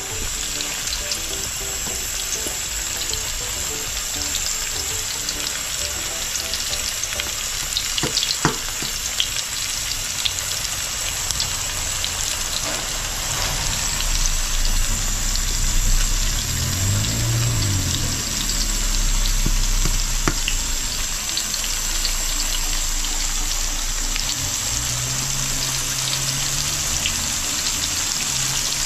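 Floured fish frying in hot oil: a steady, dense sizzle with scattered pops and crackles.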